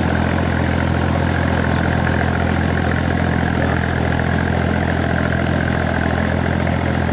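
Iseki 3510 tractor's diesel engine running steadily under load as the tractor drags a levelling board through flooded paddy mud on cage wheels.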